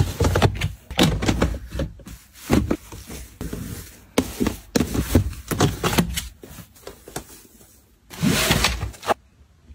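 Household items being handled and put away: a busy run of light knocks, taps and rubbing scrapes, with a longer sliding scrape near the end.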